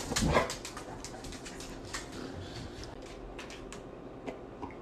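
Dog gives one short, loud vocal protest in the first half-second, its sass at being refused a treat. Scattered light clicks follow, the dog's claws on the wooden floor.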